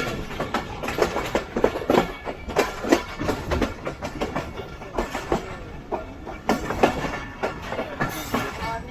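Passenger train's wheels clattering over rail joints and junction points, heard from on board a moving express, with rapid irregular clacks over a steady running rumble.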